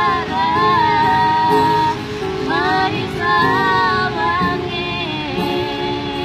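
A woman singing with her own strummed guitar accompaniment. The voice stops about four and a half seconds in, and the guitar carries on alone.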